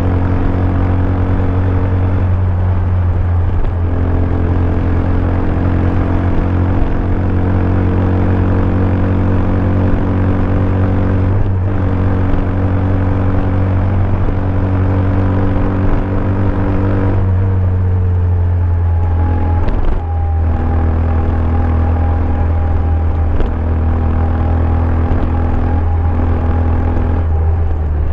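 Bajaj Pulsar 200 DTSi's single-cylinder engine with its stock exhaust, running steadily under way at cruising speed. The note falls a little about two-thirds of the way through, dips briefly, then steadies again.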